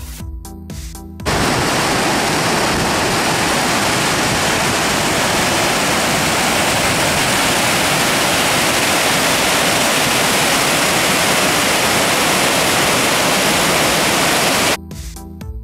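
Steady loud rush of fast-flowing creek water. It cuts in abruptly about a second in and cuts off just as abruptly near the end, with electronic background music before and after it.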